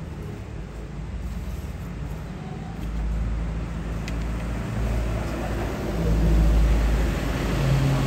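Subwoofer cabinets in a sound test, playing deep bass notes that change pitch every second or so. The level steps up about three seconds in and again about six seconds in.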